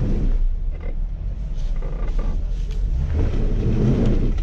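Jeep Wrangler crawling slowly over rocks: low, steady engine rumble with creaking, swelling louder about three to four seconds in.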